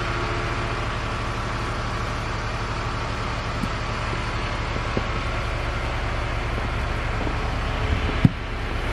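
Car with its engine running, a steady low hum under a fan-like rush. A few light clicks, and a single sharp knock just after eight seconds in.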